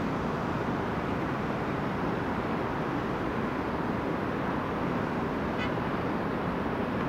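Steady rumble of heavy trucks' engines and road traffic, with a brief faint rattle about five and a half seconds in.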